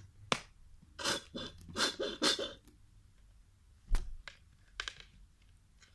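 A plastic body wash bottle squeezed upside down over a plastic bucket: a click, then several short noisy squirts of gel and air about one to two and a half seconds in. About four seconds in comes a dull thump as the plastic bucket is handled, followed by a few small clicks.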